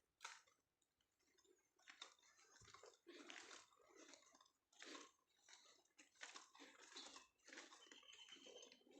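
Faint footsteps at a walking pace, a short scuffing step roughly every half second to a second, with a brief pause about a second in.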